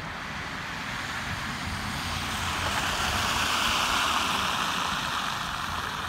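Car tyres hissing on a wet, slushy road as traffic passes, swelling about three to four seconds in and then easing off.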